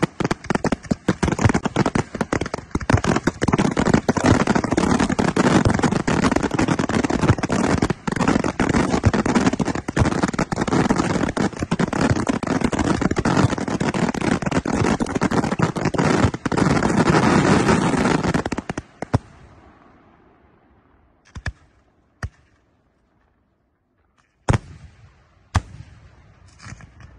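Aerial fireworks display: a dense, unbroken barrage of shell bursts and crackle that stops about 19 seconds in, followed by a few single bangs.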